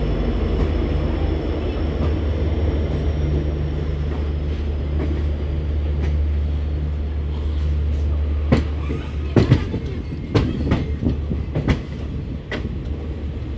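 Passenger train rolling past with a steady low rumble. From about eight seconds in, the wheels clack over the rail joints.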